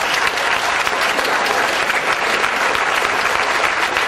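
Audience applauding, many hands clapping at once in a steady wash of claps.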